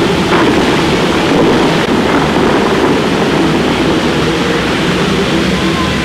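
Fountains of Bellagio water jets shooting up and their spray crashing back onto the lake: a loud, steady rush of water, with the show's music faintly underneath.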